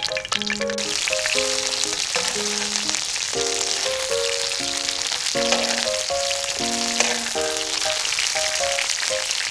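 Food frying in a pan, a steady sizzle that starts about a second in and cuts off abruptly at the end, under background music with a simple melody of held notes.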